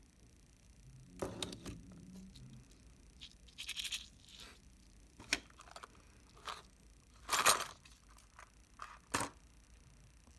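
Small metal screws and camera parts rattling and clinking in a plastic bottle cap, with scattered clicks of parts being handled; the loudest rattle comes about seven and a half seconds in.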